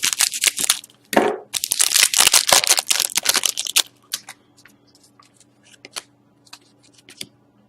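Foil wrapper of a hockey card pack being torn open and crinkled, a dense crackling for about four seconds, then a few faint clicks.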